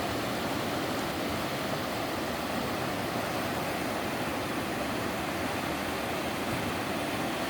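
Three-tiered sliding waterfall in a mountain stream, water rushing steadily over the rock slabs.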